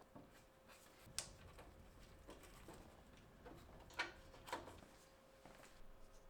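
Near silence with a faint steady hum and a few faint, short clicks and taps, the clearest about a second in and two close together around four seconds in.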